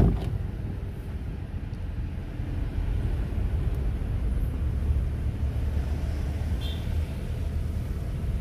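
A vehicle engine running with a steady low rumble, with a sharp knock right at the start.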